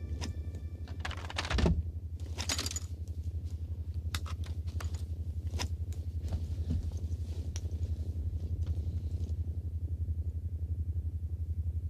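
Metal harness buckles clicking and straps being fastened, in scattered sharp clicks, the loudest about a second and a half in. A low, rapidly pulsing hum runs underneath.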